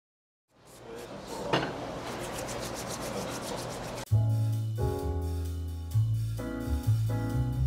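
Hands rubbing together briskly for about three seconds, a dry rasping rub. Background music with a bass line and piano chords then comes in and is louder.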